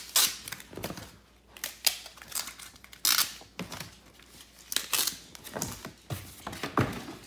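Bagged comic books and cardboard being handled as they are pulled out of a mystery box: irregular crinkling of plastic comic bags and rustling, with several sharper crackles.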